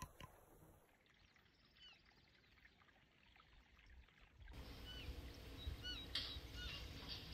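Faint outdoor ambience. The first half is nearly silent apart from a few handling clicks; about halfway through, a steady low rumble comes in, with a few short, high chirping calls repeating over it.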